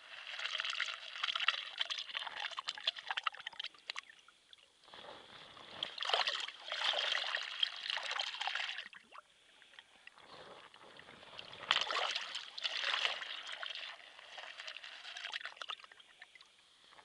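Water on top of river ice swirling down a hole in the ice in a whirlpool, gurgling and trickling as it drains. It comes in surges with short lulls between them, louder about six seconds in and again about twelve seconds in.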